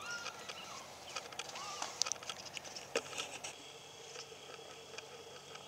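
A few faint short animal calls over outdoor ambience: one held then falling at the start, one rising and falling a little before two seconds in. Two sharp clicks follow, about a second apart.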